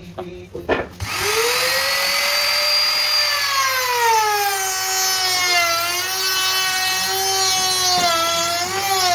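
Trim router switched on about a second in, after a couple of short knocks. Its motor whine rises in pitch as it spins up, then sags and settles lower as the bit cuts into the wood in the jig.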